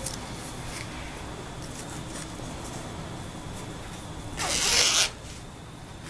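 Soft rustling of a knit blouse and a nylon mesh laundry bag being handled, then the bag's zipper pulled shut in one quick stroke of about half a second, about four and a half seconds in.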